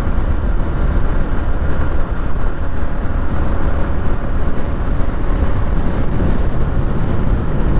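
Motorcycle on the move along a highway: a steady, unbroken rumble of engine, tyre and wind noise.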